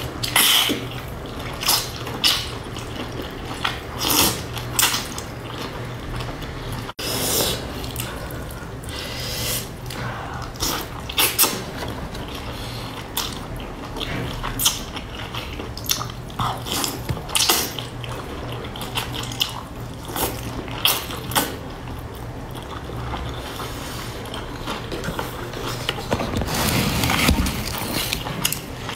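Close-up eating sounds of wide flat mianpi noodles in chili oil: wet slurps as strips are sucked into the mouth, with chewing and lip smacks at irregular intervals over a faint low hum.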